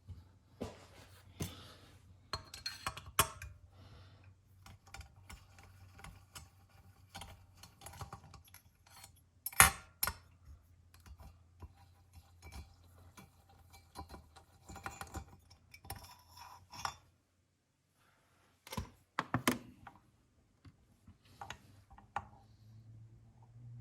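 Chainsaw pistons and small metal parts being handled on a workbench: scattered clicks, taps and clinks, with one sharper knock about ten seconds in. A faint low hum underneath stops partway through.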